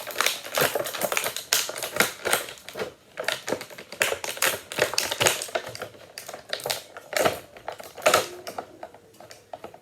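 Plastic packaging being handled: dense, irregular clicking and crinkling as an action figure is worked loose from its plastic tray, thinning out near the end.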